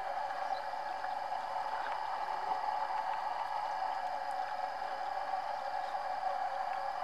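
Water splashing and dripping as a fish is worked free of a gill net at the water's surface, over a steady unbroken hum.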